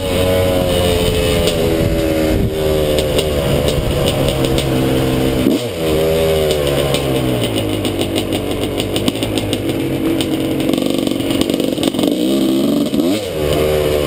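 Suzuki RM250 single-cylinder two-stroke dirt bike engine under way, its pitch rising and falling as the throttle is worked. The pitch drops sharply and climbs back about halfway through, and again near the end.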